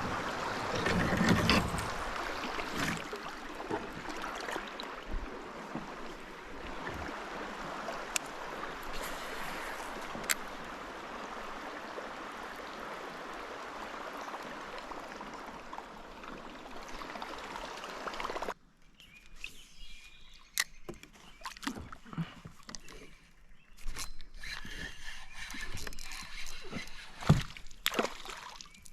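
Wind rushing on the microphone over moving river water; about two-thirds of the way through it cuts off abruptly, leaving quieter water with scattered light knocks and clicks.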